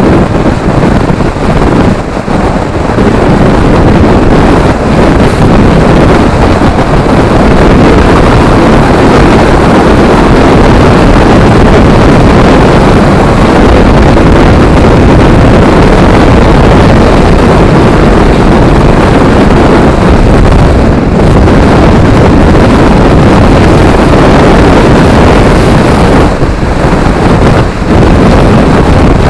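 Loud, steady wind rush buffeting a helmet-mounted camera's microphone on a moving motorcycle, with the bike's running and road noise mixed in underneath.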